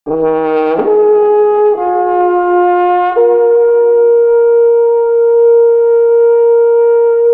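A wind instrument playing a short run of sustained notes: three brief notes stepping in pitch, then a final note held steady for several seconds.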